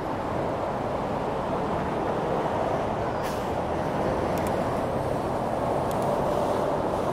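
Steady rushing road noise heard from a moving bicycle on a city street: passing traffic, tyres and air blend into one continuous wash. A few faint clicks stand out from it.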